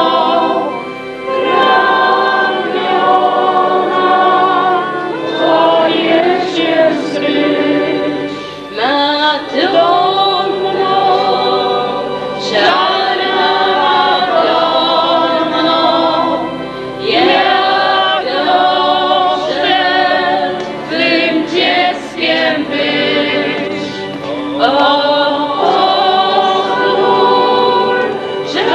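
A group of men's and women's voices singing a song together in harmony, phrase by phrase with short breaks between the lines.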